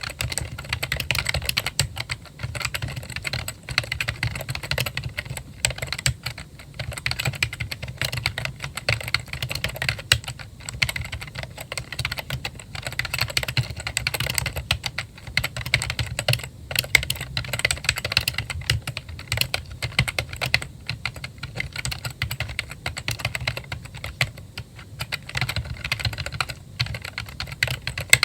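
Apple A1048 keyboard being typed on quickly and continuously, a dense run of key clicks and clacks with only brief pauses.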